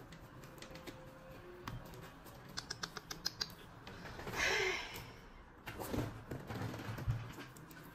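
Quiet small noises on a desk: a quick run of light clicks about halfway through, then a short rustle and a few soft knocks.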